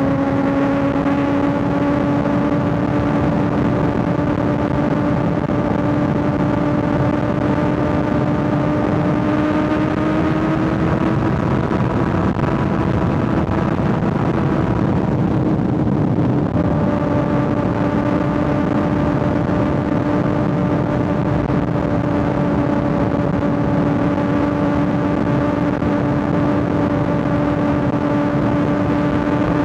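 Kawasaki ZX6R 636 inline-four motorcycle running at steady high revs while cruising, under a constant rush of wind. About halfway through the note climbs a little, eases off for a couple of seconds, then holds steady again.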